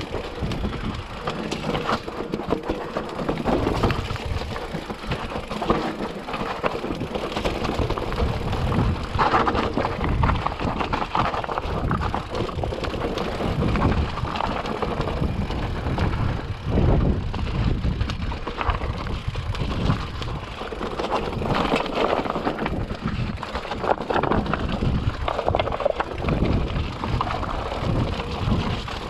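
Electric mountain bike riding over a loose, rocky trail: tyres crunching over stones and the bike clattering with constant irregular knocks, with wind rushing on the microphone.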